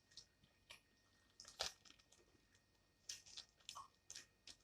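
Faint, scattered crunches and mouth clicks of someone chewing and biting into fried seafood, a few short crackles every half second or so.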